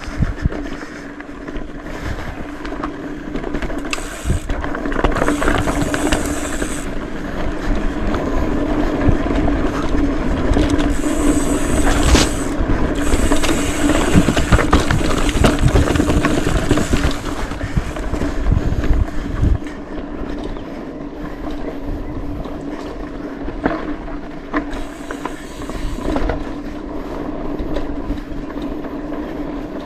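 Mountain bike ridden fast down a dirt trail: tyres rolling and jolting over rough ground, with wind across the microphone. The noise is loudest through the middle stretch and eases somewhat after that.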